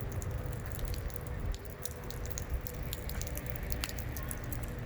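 Rain: irregular drops ticking sharply close to the microphone, over a steady low rumble.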